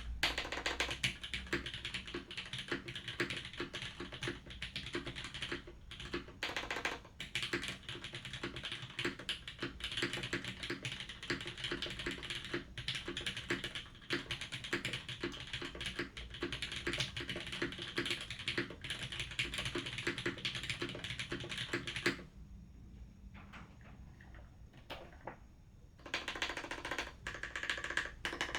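Fast typing on a custom TKL mechanical keyboard with lubed, filmed Cherry MX Red linear switches, an aluminium plate and GMK keycaps: a dense run of keystrokes. About two-thirds of the way through, the typing thins to a few scattered keystrokes for several seconds, then picks up again near the end.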